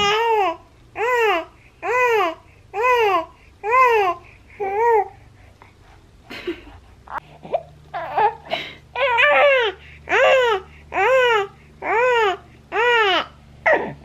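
Two-month-old baby fussing and crying in short wails, each rising and then falling in pitch, about one a second. The wails pause about five seconds in and start up again a couple of seconds later.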